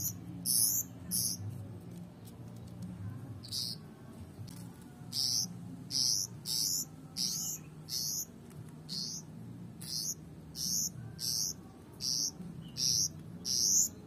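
Young pied bushchat giving short, high-pitched calls that sweep upward. There are two near the start, then a pause, then a run of roughly two calls a second.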